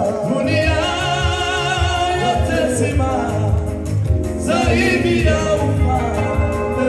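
Gospel worship music: a praise team singing with wavering held notes over band backing with a steady low beat.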